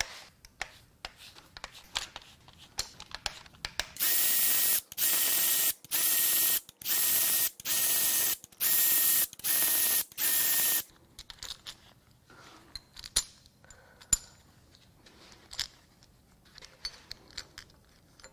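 Cordless power ratchet spinning out the rocker arm bolts on a Ford 351 Windsor cylinder head: seven short runs of motor whine in a row, about a second apart, starting about four seconds in. Light metal clicks and taps come before and after, as sockets go onto the bolts and rockers are handled.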